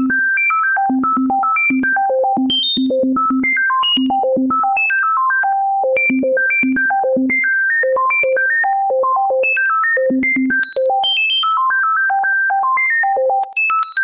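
A quick stream of short, clean synthesized notes jumping unpredictably between low and high pitches: a computer-generated sonification of the prime numbers.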